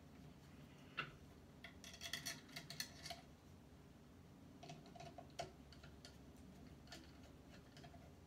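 Faint clicks and ticks of a hand screwdriver turning a screw in the wooden stock of a blunderbuss kit, snugging the hardware down. One sharp click about a second in, then a quick run of clicks for about a second, then a few scattered clicks.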